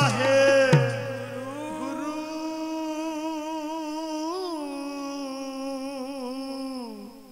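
Gurbani kirtan: a male singer holds one long, wavering drawn-out note that fades out near the end. A couple of tabla strokes sound in the first second, and the bass drum's low ring dies away by about two seconds in.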